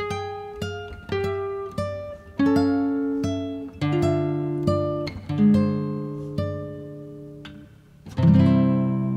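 Guitar music: plucked notes and chords, each fading, until a full strummed chord about eight seconds in rings out.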